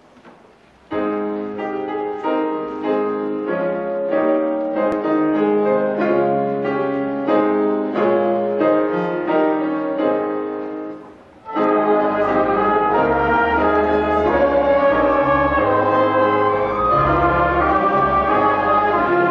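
A church orchestra of strings and brass plays a hymn. After a quiet first second, a softer opening with distinct notes begins. About eleven seconds in, after a brief dip, the full orchestra comes in louder, with low brass including a tuba.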